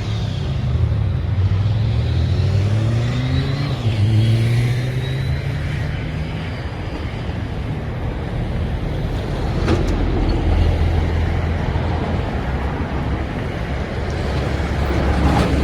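Road traffic with a loud, low engine rumble; in the first few seconds a vehicle's engine rises in pitch as it accelerates.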